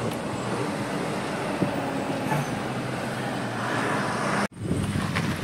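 Engine hum and road noise of a car driving slowly, heard from inside the cabin, swelling about three and a half seconds in as an oncoming tanker truck draws near. The sound cuts off abruptly about four and a half seconds in, then a similar steady hum resumes.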